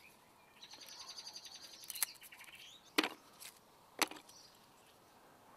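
Thin strips of smoking wood broken by hand and tossed into a plastic bucket: three sharp cracks about a second apart, starting about two seconds in. Before them a bird trills briefly at high pitch.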